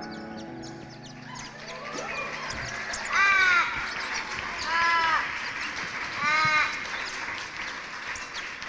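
A crow cawing three times, each caw about half a second long and about a second and a half apart, over a steady hiss. Low held notes from the band fade out before the first caw.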